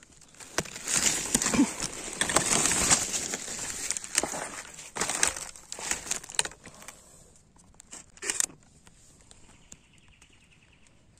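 Dry leaf litter and undergrowth rustling and crackling, with scattered sharp snaps. It is loudest in the first half, ends with a short burst a little after eight seconds, and then goes quiet.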